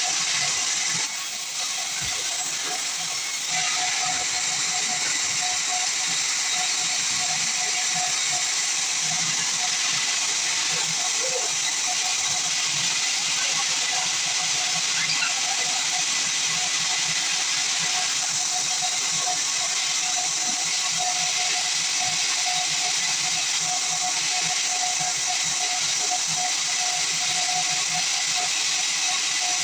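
Sawmill band saw cutting a pine log: a continuous hiss with a steady whine.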